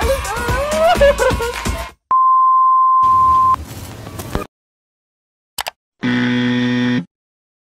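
Electronic music that stops about two seconds in. Then comes a steady high beep like a test tone for about a second and a half, a faint static hiss with a glitch transition, a short click, and a low electronic buzz lasting about a second.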